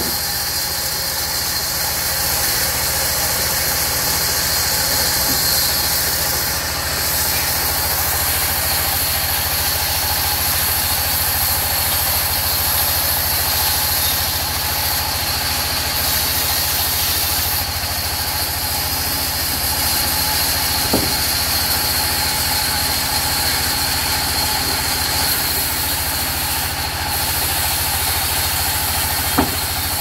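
Sawmill band saw running steadily with a constant machine hum and hiss. Two short sharp knocks come through, one about two-thirds of the way in and one near the end.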